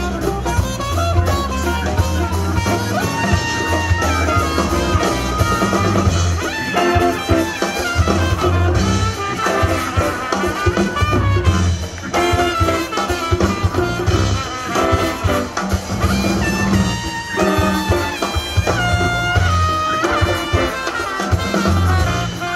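Live band with a horn section playing an up-tempo jazz tune: trumpet out front with trombone and baritone saxophone over drum kit, bass and hand percussion. Near the end the horns hold a few long high notes that step in pitch.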